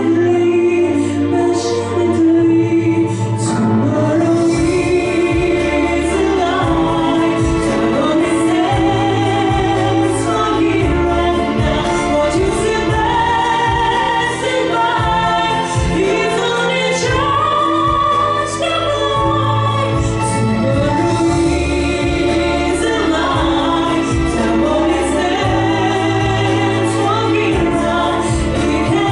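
A slow pop ballad backing track with sustained chords, a bass line and choir-like backing vocals, while a solo voice sings the melody over it.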